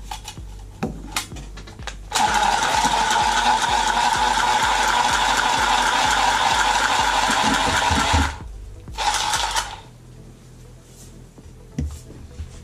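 Milwaukee cordless copper tubing cutter spinning its cutting wheel around a copper pipe: a steady whirring for about six seconds, then a short second burst about a second after it stops.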